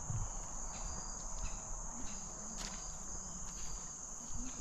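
A steady, high-pitched chorus of insects singing without a break, with a few faint ticks over it.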